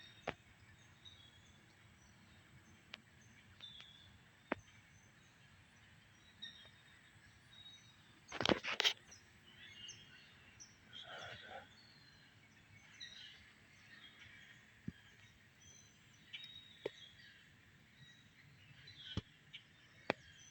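Quiet woodland background with scattered faint bird chirps and a few sharp clicks. About eight and a half seconds in there is one louder, brief rustling noise.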